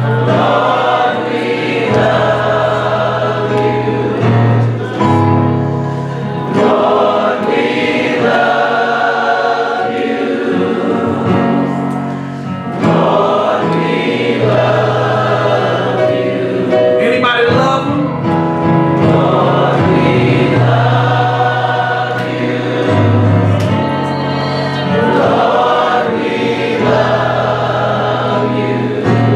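Gospel choir singing with instrumental accompaniment, over a bass line of long held notes that step from pitch to pitch.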